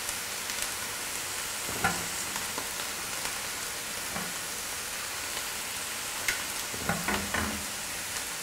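Hot oil sizzling steadily in a frying pan as vegetable fritters are lifted out, the burner just switched off. A few light clicks and knocks of the fork against the pan and tray come about two seconds in and again near the end.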